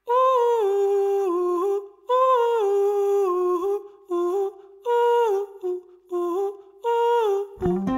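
Song intro: a solo voice hums a wordless melody in short phrases, each stepping down in pitch, with no accompaniment. A band with bass comes in right at the end.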